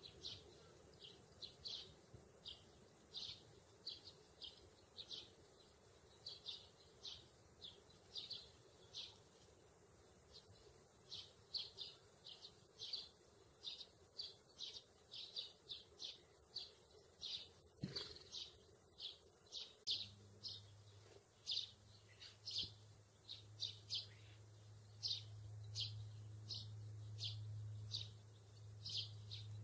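House sparrows chirping: short, repeated cheeps, about one or two a second. About two-thirds of the way in, a steady low hum starts underneath.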